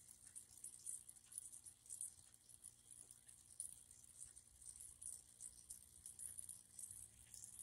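Near silence: a faint, irregular high crackle over a faint steady low hum.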